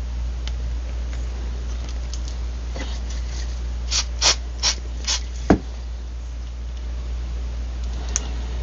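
A handful of light clicks and scrapes as parts are handled on a workbench, with one sharp knock about five and a half seconds in, over a steady low hum.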